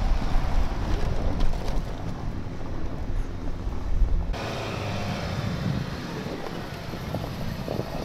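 Vehicle engine running under heavy wind buffeting on the microphone. About four seconds in the sound cuts to a quieter engine note whose pitch wavers.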